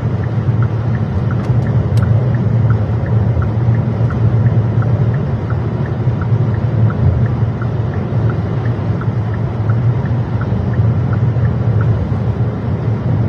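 Steady road and engine rumble inside a moving car, with a turn signal ticking evenly about twice a second.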